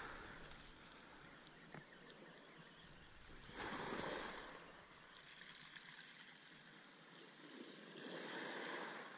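Sea waves washing against wooden groyne posts, the wash swelling up about every four seconds.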